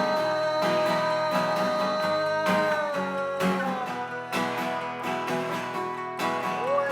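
Acoustic guitar strummed in a steady rhythm in an instrumental gap of an acoustic indie rock song, under a long held note that sags and fades out about halfway through.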